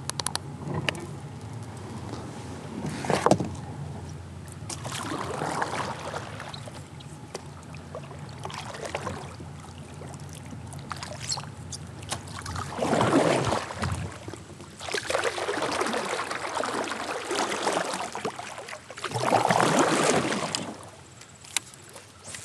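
Gear handling and paddling aboard a plastic sit-on-top kayak (Wilderness Systems Tarpon 120): a string of separate splashing, rubbing noises, the longest lasting a few seconds about two-thirds through and another near the end.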